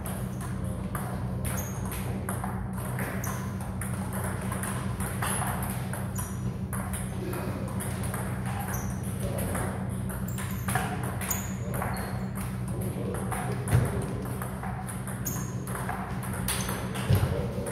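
Table tennis ball being hit back and forth in a rally, a run of sharp clicks off the bats and the table, with two louder hits near the end. A steady low hum runs underneath.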